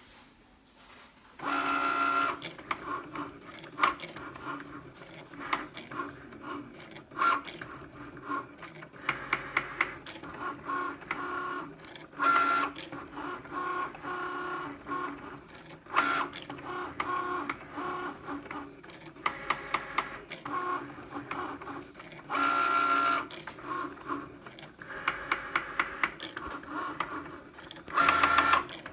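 Cricut Maker cutting machine starting a cut about a second and a half in: its motors whir in shifting tones as the carriage moves back and forth, broken by runs of rapid sharp knocking clicks. On this brand-new machine the knocking is a fault the owner is reporting.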